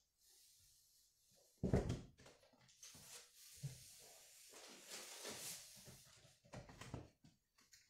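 Goods being shifted and pressed down inside a cardboard box: a loud thump nearly two seconds in, then scattered knocks, scrapes and rustling.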